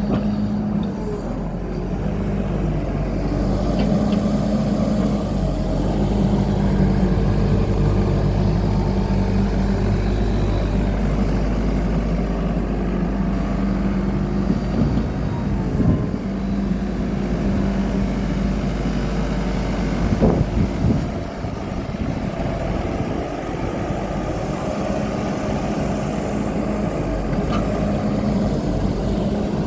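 Diesel engine of a Caterpillar 308D CR mini excavator running steadily, with a couple of brief knocks about halfway through.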